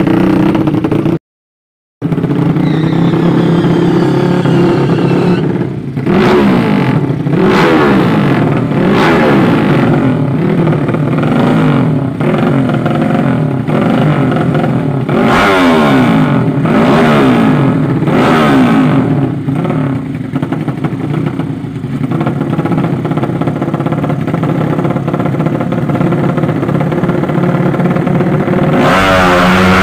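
200cc horizontal-cylinder drag-race motorcycle engines revving hard, their pitch climbing and dropping again and again with throttle and gear changes. The sound cuts out completely for a moment about a second in.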